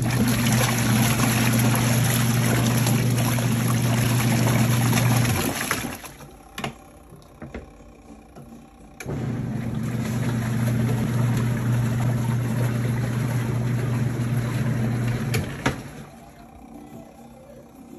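ZENY portable twin-tub washing machine's motor running with water churning, a steady hum with a noisy wash over it. It runs for about six seconds, stops, and then runs again for about six seconds.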